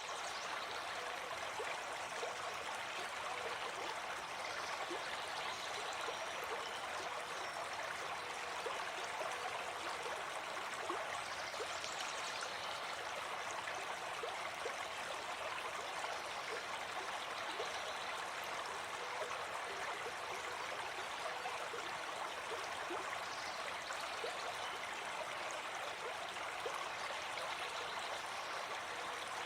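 Steady running water, like a stream babbling, with an even rushing sound.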